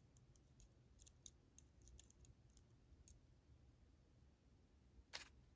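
Faint, scattered small clicks of lock pin parts being handled as a spring and driver pin are loaded into the bible of an American Lock Series 1105 padlock during reassembly, with one sharper click about five seconds in.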